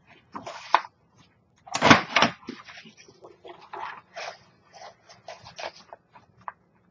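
Blue cardstock rustling and scraping in short, irregular bursts as it is turned and positioned in a We R Memory Keepers Lucky 8 punch, the loudest burst about two seconds in.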